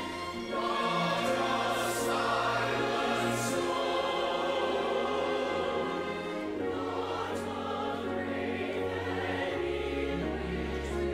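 Church choir singing an anthem in harmony, accompanied by brass, with long low bass notes underneath.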